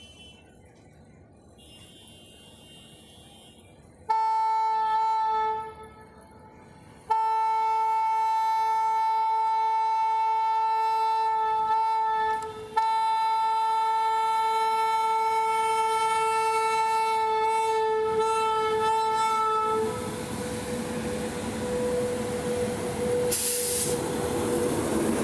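Karnavati Express locomotive horn sounding as the train departs: a short blast, then a long, loud blast lasting about thirteen seconds with a brief break in the middle. The train then gets rolling with a rising rumble and a short hiss of air near the end.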